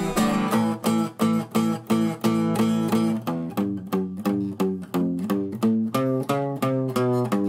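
Folk music on a plucked acoustic guitar: a quick run of single notes, about four a second, at an even pace.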